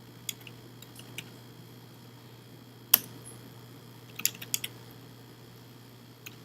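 Computer keyboard keystrokes, sparse and irregular: a few single taps, one louder tap about three seconds in, and a quick run of keys a little after four seconds.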